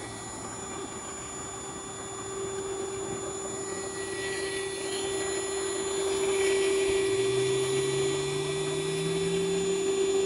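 Portable wet/dry shop vacuum running steadily, pulling bees through a hose into a bucket bee vacuum: a steady motor whine over a rushing hiss, getting a little louder past the middle.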